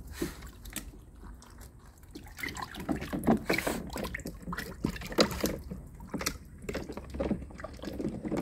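Water sloshing and splashing in a shallow plastic kiddie pool as a poodle wades and dunks its muzzle to nose stones off the bottom. Short, irregular splashes, sparse at first and busier after about two seconds.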